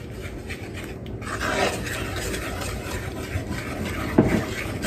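Wooden spoon stirring and scraping through thick gravy in a cast iron skillet, with a brief pitched sound about four seconds in.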